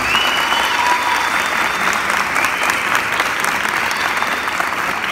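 Audience applauding steadily after a dance performance, a dense patter of many hands clapping, with a few high calls near the start.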